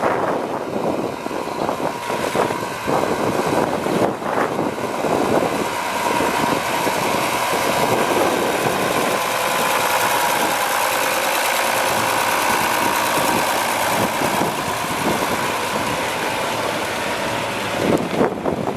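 John Deere 4030 tractor's six-cylinder diesel engine idling steadily.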